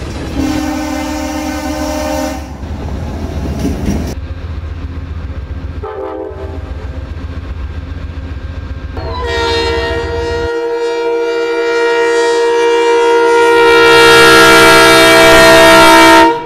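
Diesel locomotive air horns sounding over train rumble in a string of short cuts. A brief chord comes about half a second in. From about nine seconds in, a long multi-note horn blast grows steadily louder and cuts off abruptly just before the end.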